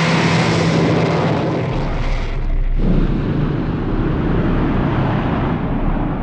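Cartoon rocket-engine sound effect: a loud, steady, noisy roar of rocket thrust that thins to a lower rumble about three seconds in, as the rocket sets down.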